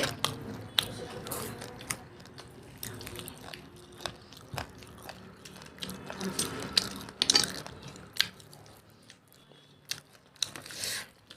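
Close-up eating sounds of mutton curry and rice being chewed, with scattered sharp clicks and smacks that thin out near the end.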